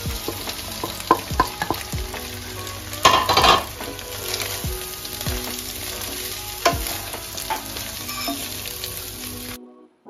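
Flattened rice being stirred into fried egg and onions in a hot oiled kadai: steady sizzling, with the spatula knocking and scraping against the pan several times and a louder stretch of stirring about three seconds in. The sound cuts off suddenly near the end.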